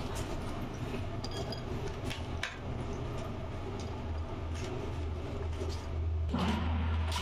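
Green chillies being swished and scooped by hand in a plastic basin of water: light splashing and small clicks, growing louder near the end, over a steady low hum.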